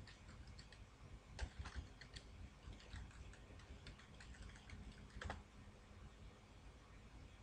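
Faint typing on a computer keyboard, scattered short key clicks, with one louder click a little over five seconds in.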